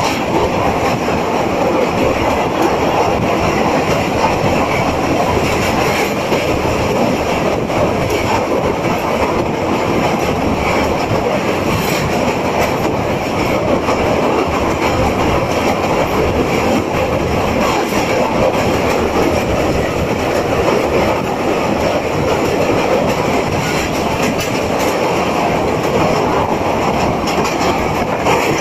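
Express passenger train crossing a steel truss railway bridge, heard from the carriage window: a steady, loud rumble of wheels running on the rails.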